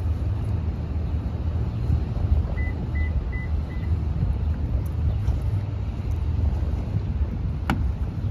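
Steady low rumble of a vehicle on the road. Four short high beeps come about three seconds in, and there is a sharp click near the end.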